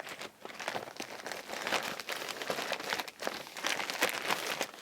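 Packaging crinkling and rustling as it is unwrapped and handled, a dense run of small crackles.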